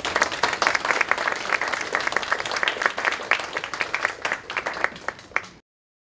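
Audience applauding at the end of a talk, many hands clapping at once, thinning out toward the end before cutting off abruptly.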